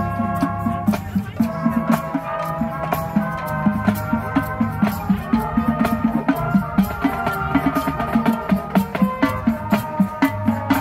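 Marching band playing: brass instruments, including trumpets and sousaphones, hold chords that change every second or so over a steady drumbeat of about three hits a second.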